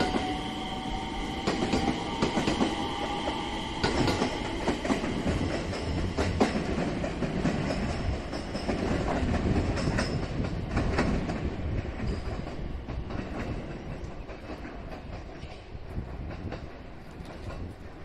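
JR West 227 series electric train pulling away over the rails: a motor whine that rises slightly in the first few seconds, with wheels clacking over rail joints, fading as it recedes.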